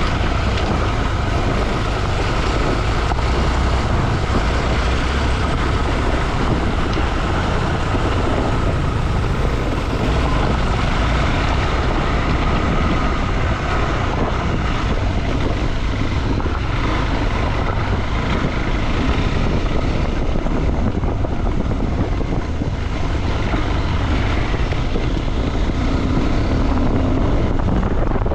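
KTM 390 Adventure motorcycle's single-cylinder engine running steadily under way, mixed with heavy wind rumble on the microphone.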